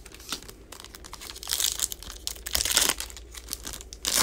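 A foil wrapper of a Panini Playoff football card pack being torn open and crinkled by hand. It comes as crackling rustles with two louder bursts about a second and a half and two and a half seconds in.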